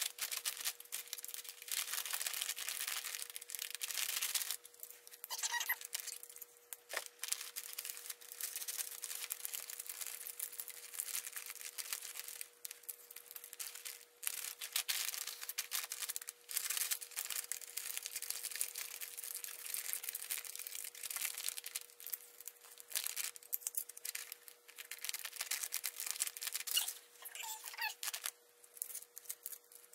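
Gold metallic foil wrapping paper crinkling and rustling in irregular bursts as it is folded and pressed around a gift box.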